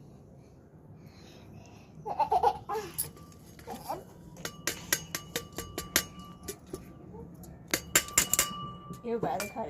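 Repeated sharp metallic clinks of a metal utensil being struck, each leaving a brief ringing tone, about three to four a second in two runs through the middle.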